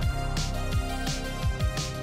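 Background pop music with a steady drum beat: a kick drum about three times a second and a sharper hit on every other beat, over sustained chords.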